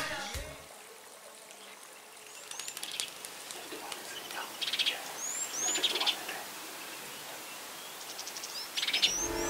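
Wild birds calling: short high chirps that rise or fall, and several quick chattering trills, over a faint outdoor background.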